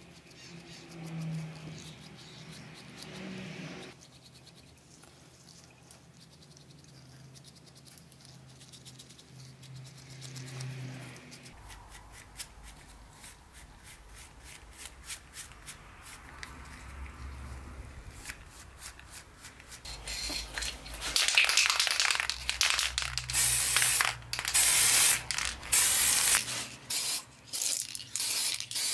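Faint strokes of a paintbrush applying wood finish to small wooden parts, then, about two-thirds of the way in, loud repeated hissing bursts from an aerosol spray can, sprayed in short blasts with brief gaps, putting gold paint on small metal hardware.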